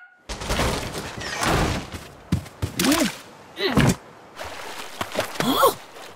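Cartoon sound effects: a thunder crash as lightning strikes, then a wash of surf. Over the surf come a few short gibberish vocal sounds, each rising and falling in pitch.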